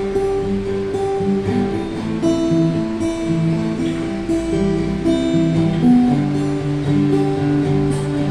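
Acoustic guitar (violão) playing a steady run of changing chords and melody notes.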